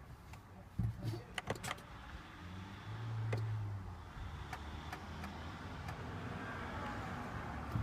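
A 2013 Volvo V60 D2 that will not start: a quick series of clicks, then a short low electric hum for about a second, then a steady hiss. These are the car's electrics and relays responding without the engine catching, which the owner suspects is a weak battery.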